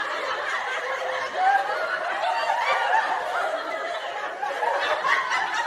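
Laughter: people laughing, with wavering voice sounds throughout and no sharp or sudden noises.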